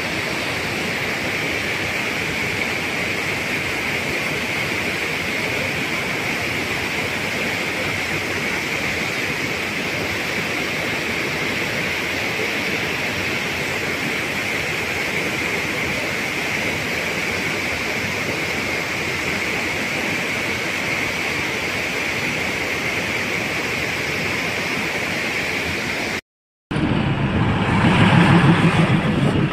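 A mountain stream rushing over boulders in a steady white-water cascade. Near the end it cuts off abruptly and gives way to a louder, lower engine rumble.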